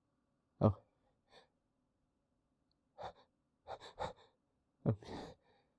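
A man's short, sharp breaths and gasps as he fights to hold back a sneeze: a loud gasp about a second in, then several quicker clusters of breaths near the middle and the end.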